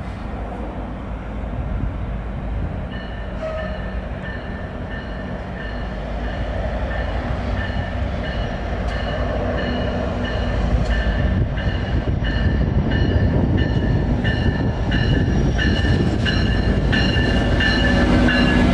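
Metrolink commuter train with a diesel locomotive approaching and pulling past, its low engine and wheel rumble growing steadily louder. From about three seconds in, a bell rings in a steady repeating pattern.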